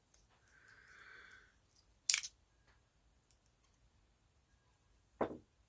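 Small hand tools and electrical parts handled during wiring work: a brief faint rasp about a second in, then two sharp clicks, the louder one about two seconds in and another near the end.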